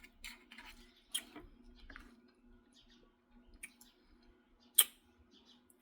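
Scattered small clicks and taps of someone eating a snack of sardines on crackers, with one sharp, louder click about five seconds in, over a faint steady hum.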